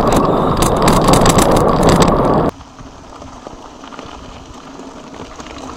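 Mountain bike riding with loud wind rumble on the camera's microphone and rattling clicks. It cuts off suddenly about two and a half seconds in, leaving a much quieter rolling sound of tyres on a gravel track.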